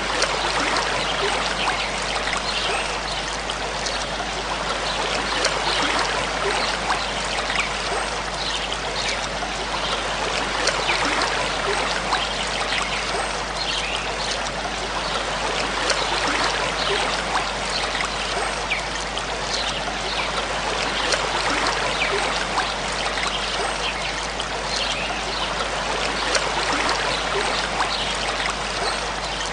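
Waterfall rushing steadily: a constant hiss of falling water, flecked with many small splashes.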